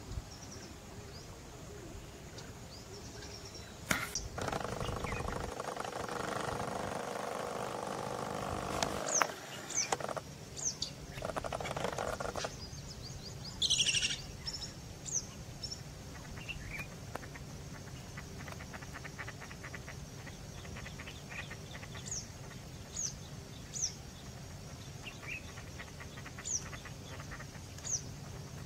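Birds chirping: short, high chirps scattered through, with one louder call about halfway through. A sharp knock about four seconds in starts a stretch of rushing noise that stops about twelve seconds in.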